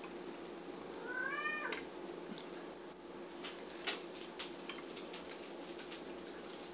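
A house cat meowing once, about a second in: a short call that rises and then falls in pitch. A few faint clicks follow.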